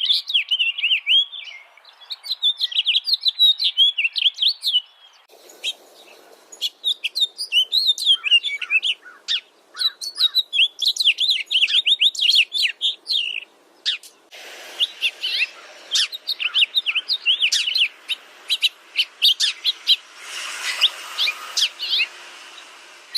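Songbirds chirping and trilling in quick, overlapping phrases, several birds at once. The faint background hiss changes abruptly a few times, as at splices between recordings.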